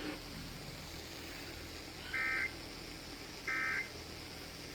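Two short, identical bursts of Emergency Alert System (SAME) digital data tones, each under half a second and about a second and a half apart, after a couple of seconds of faint hiss. These are the end-of-message code that closes the relayed warning.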